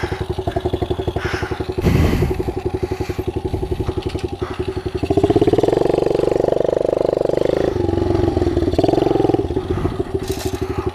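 Kawasaki KLX110 pit bike's small single-cylinder four-stroke engine, running with an open exhaust, putters evenly at low revs. About halfway through it is opened up and runs louder for a few seconds, then again briefly near the end. There is a short clatter about two seconds in.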